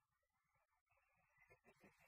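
Near silence, with a few faint, short, soft sounds beginning about a second and a half in.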